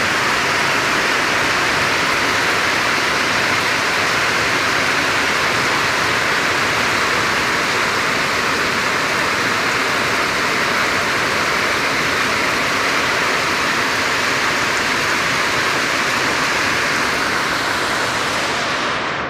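Rain falling steadily, a dense, even hiss that dies away near the end.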